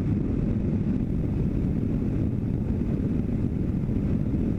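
Aeropilot Legend ultralight aircraft in cruise flight: a steady low drone of its engine and propeller.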